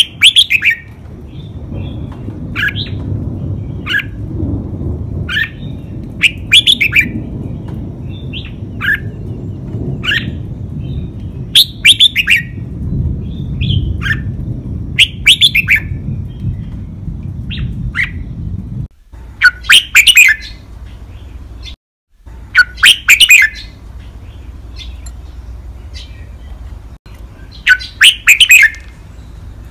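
Red-whiskered bulbul singing its five-syllable song: short phrases of quick, clear notes repeated every second or two, the loudest phrases near the start and in the last third. A low steady rumble runs under the first two-thirds.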